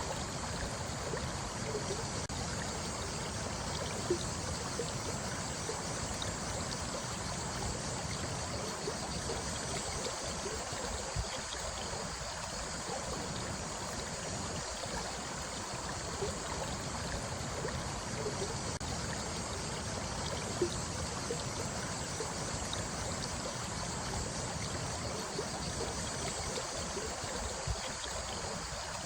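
Running water flowing steadily, like a small stream, with a few brief sharper water sounds now and then.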